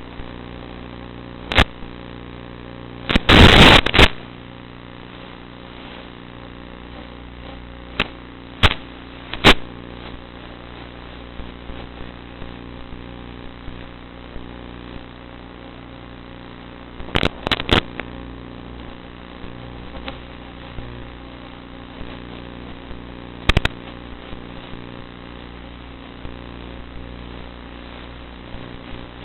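Electric motor and propeller of a Zagi flying-wing model plane running at a steady hum in flight. Sharp crackling pops break in at intervals, the loudest a short burst about three seconds in, with others around eight to ten seconds and near seventeen seconds.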